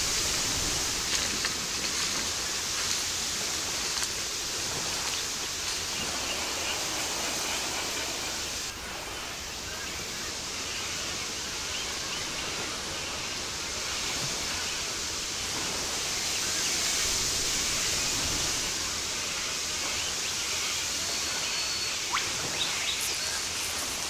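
Steady outdoor bush ambience: an even hiss strongest in the high range, with a few faint ticks. The background changes abruptly about nine seconds in.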